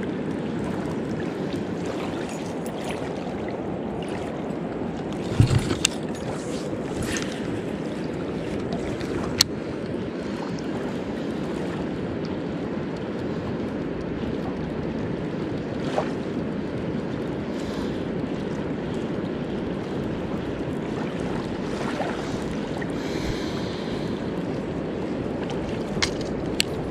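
Steady rush of river water and wind at the bank. A few short knocks and clicks from handling the baitcasting rod and reel sit on top, the loudest a thump about five seconds in.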